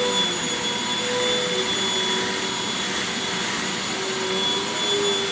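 Vacuum cleaner running steadily, its motor whine wavering slightly in pitch as it is pushed about.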